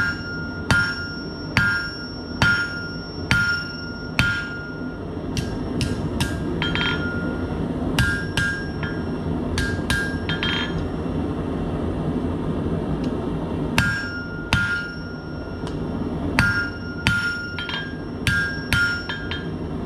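Hand hammer striking a red-hot steel bar held half on, half off the edge of the anvil to forge an offset, about one blow a second, each blow ringing out in a clear metallic tone. The blows stop for a few seconds just past halfway, then resume at the same pace.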